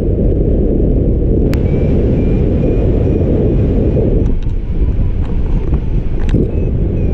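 Strong wind rushing and buffeting over the microphone, with a faint run of short high beeps repeating through it.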